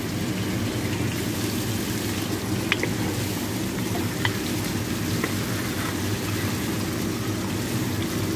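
Whole chickens sizzling in hot oil and spiced tomato sauce in a large pot, a steady frying hiss over a low hum, with a few faint taps of the wooden spatula as the chickens are turned.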